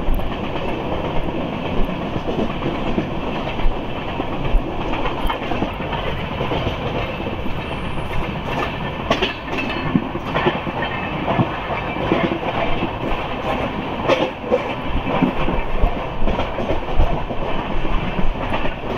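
Deccan Queen passenger coach running along the track, heard from its open doorway: a steady rumble with the wheels clattering over rail joints and sharp clicks now and then.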